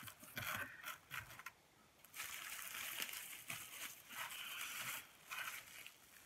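Paper and plastic packaging rustling and crinkling as it is handled. There are a few short bursts at first, then a longer stretch of rustling in the middle and another brief burst near the end.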